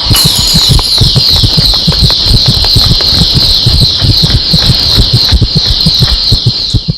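GT Benz alarm padlock's built-in siren going off: a loud, high-pitched electronic wail of rapidly repeating falling sweeps, with irregular knocks underneath, that cuts off suddenly at the end. The alarm is set off by tampering with the lock.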